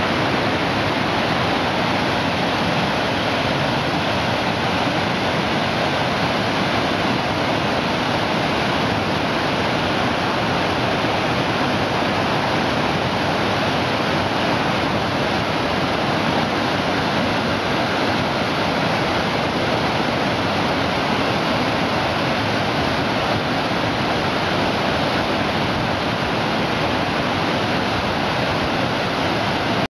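Water rushing steadily over a waterfall and the rocky cascades of the stream below it, an even unbroken rush.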